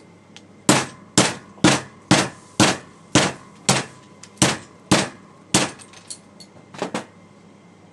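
A rapid series of about a dozen sharp knocks or blows, roughly two a second, like repeated hammering on a hard object.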